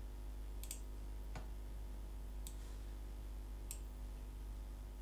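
Computer mouse clicking: a quick double click and then a few single clicks about a second apart, over a low steady electrical hum.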